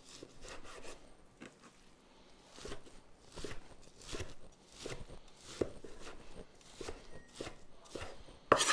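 Kitchen knife chopping partly frozen, thinly sliced ribeye: irregular short knocks of the blade, about one or two a second, with a louder knock near the end.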